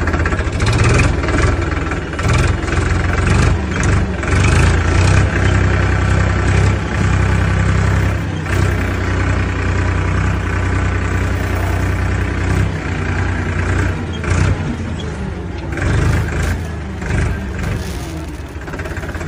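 Motor-vehicle engine sound, running with a deep steady rumble and uneven surges of revving.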